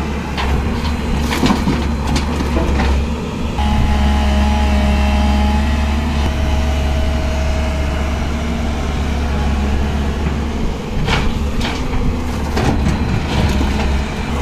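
Tracked excavator's diesel engine running steadily under load while it digs and swings, a constant low hum. A higher steady whine joins for a few seconds about a quarter of the way in, and a few sharp knocks come through, twice near the start and a few near the end.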